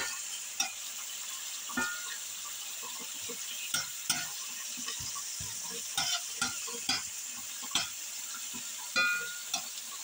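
Shrimp, onion and chicken sizzling in a hot cast-iron skillet, a steady hiss, while a metal spatula stirs them, scraping and clicking against the pan many times.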